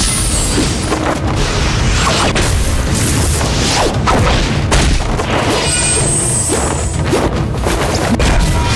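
Fight-scene sound effects: repeated booming hits and crashes over background music, with no break in the noise.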